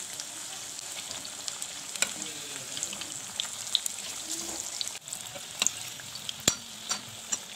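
Jackfruit pakoras deep-frying in refined oil in a kadhai: a steady sizzle full of small crackles, with a few sharper clicks as a perforated slotted spoon turns them over against the pan.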